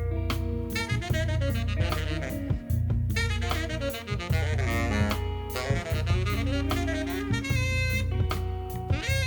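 Band playing an instrumental break in a jazzy pop song: a saxophone plays a melody over a steady bass line and drum kit.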